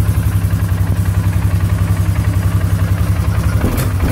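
2015 Polaris Sportsman 570's single-cylinder engine idling steadily just after starting, with a low, even pulse. A rattle from loose parts sitting on the ATV runs with it, not a fault.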